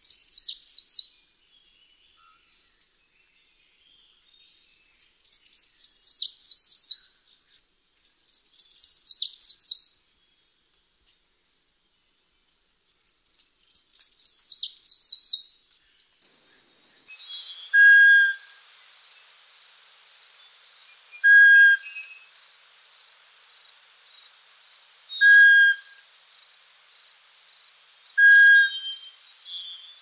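Recorded songs of cloud-forest songbirds. Four bursts of rapid, high twittering trills come first. Then, over a faint steady hiss, short call notes repeat about every three to four seconds, with a held high whistle near the end.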